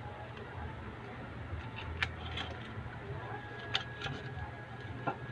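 Scattered light clicks and knocks from a homemade wooden fishing gun being handled, over a steady low hum.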